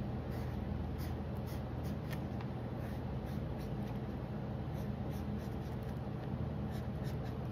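Green felt-tip marker scratching on paper in short, irregular strokes as a drawing is coloured in, over a steady low hum.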